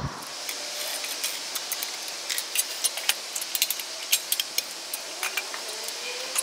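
Light metallic clicking and rattling of locking C-clamp pliers being handled and clamped onto a welded aluminum coolant reservoir and its steel jig, many small sharp clicks at irregular intervals.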